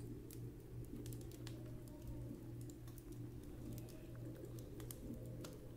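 Faint, scattered small clicks over a steady low hum.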